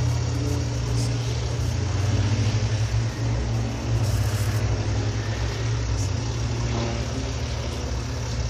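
Biplane's piston engine idling close by, a steady low hum.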